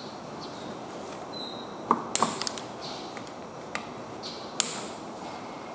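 Short, sharp metallic clicks and taps as a T-handle driver works the small 5 mm bolts on an aluminium transmission valve body: a quick cluster of clicks about two seconds in, then two more single clicks later.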